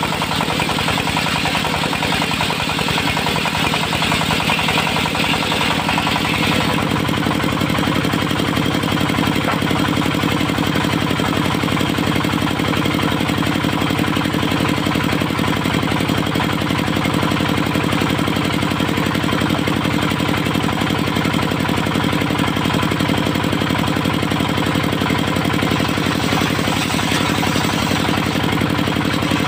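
Engine-driven portable circular sawmill running steadily. A higher hiss over the first six seconds stops abruptly, and the engine note shifts at the same moment.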